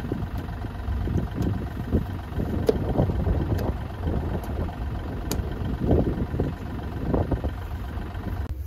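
An engine running steadily at idle, with irregular dull thuds of a sledgehammer tamping loose soil around the base of a wooden fence post.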